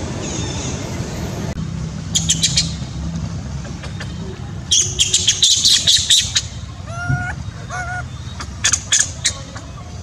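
Animal calls: short bursts of high-pitched squawks and shrieks about two seconds in, again at five to six seconds and near the end, with a lower, bending call near seven seconds. A steady low rumble runs underneath.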